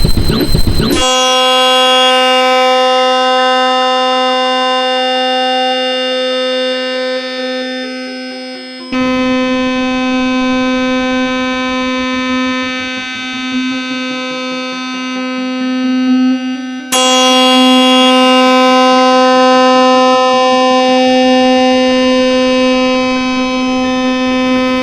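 MIDI synthesizer music played through a Yamaha XG soundfont: a dense clash of notes for about a second, then a long held buzzy tone. Over the held tone, one note glides down from very high over about eight seconds. A low note then glides slowly upward, and a second downward glide starts about seventeen seconds in.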